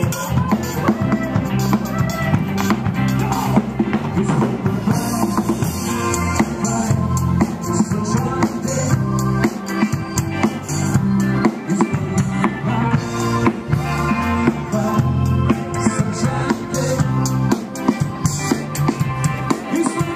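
Background music with drums keeping a steady beat.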